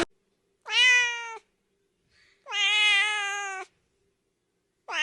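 Domestic cat meowing: two drawn-out meows about two seconds apart, with a third starting near the end.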